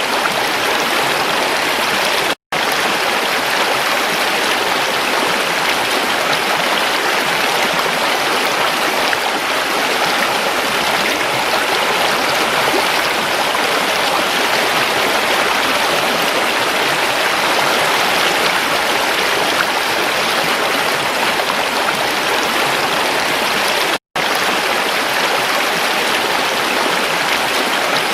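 Creek water running steadily, an even rushing and babbling. The sound cuts out for an instant twice, about two seconds in and near the end.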